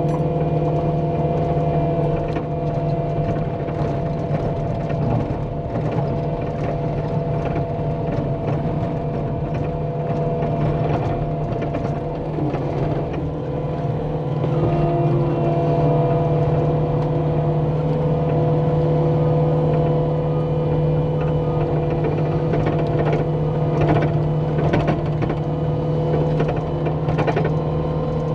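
Engine running steadily at a constant speed, with scattered light clicks and knocks over it.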